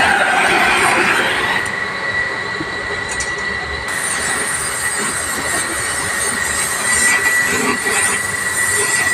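Gas welding torch flame hissing steadily with a thin high whistle, heating an aluminium radiator tank to weld a leak.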